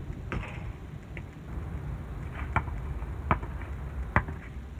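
A basketball bouncing on an outdoor asphalt court: a few sharp thuds, one just after the start and three more about three-quarters of a second apart later on, as a player dribbles. A steady low wind rumble on the microphone sits underneath.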